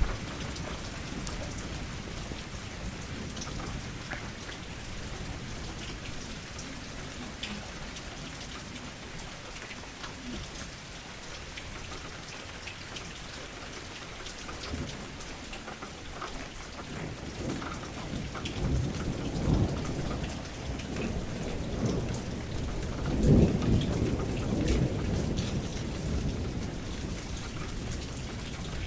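Steady rain falling, with scattered drops ticking on a surface. Low rolling thunder swells in the second half, loudest about 23 seconds in.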